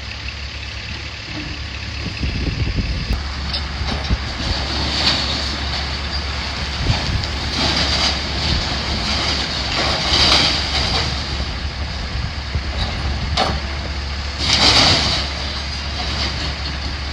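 Heavy demolition machinery running steadily with a low diesel rumble, with several short bursts of hiss-like noise over it, the loudest about ten and fifteen seconds in.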